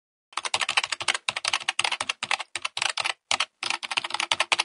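Rapid clicking like typing on a computer keyboard, in quick runs broken by short pauses. It starts and cuts off abruptly.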